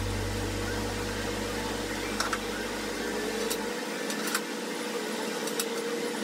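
A few light clicks and knocks as the stadium seat frame and its legs are handled and fitted, over a low steady hum that fades out a little past halfway.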